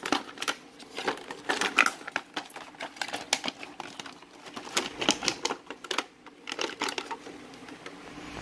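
Clear plastic blister tray and cardboard box of a car cigarette-lighter splitter being pulled apart and handled: a run of irregular sharp clicks, taps and crackles of stiff plastic.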